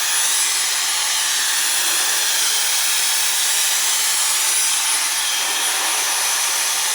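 Dyson hair dryer running steadily on its highest heat setting, a constant rush of blown air with a thin high-pitched whine over it.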